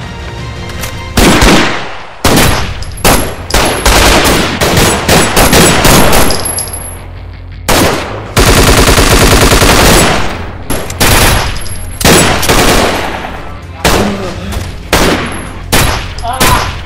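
Gunfire in a shootout: loud shots beginning about a second in, coming in quick bursts, with a long unbroken run of rapid automatic fire about halfway.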